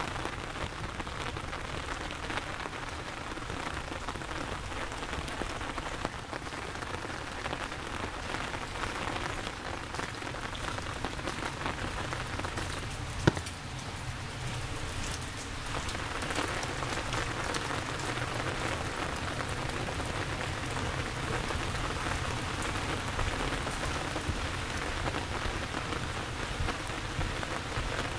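Heavy rain falling, a steady hiss that grows a little louder past the middle, with one sharp click about halfway through.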